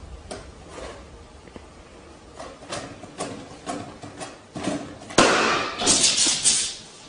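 A cat's paw batting an inflated rubber balloon, making a string of soft taps, then about five seconds in the balloon bursts with a sharp pop. Loud noise goes on for about a second and a half after the pop.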